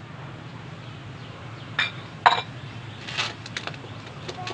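A few sharp metallic clinks of cooking utensils being handled during roti-making, the two loudest close together about two seconds in and fainter ones after. A steady low hum runs underneath.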